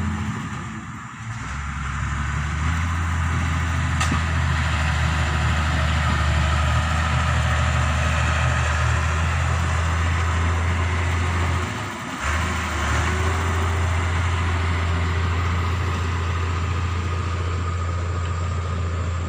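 Small D4 bulldozer's diesel engine running steadily with a deep hum, dropping away briefly about a second in and again near the middle.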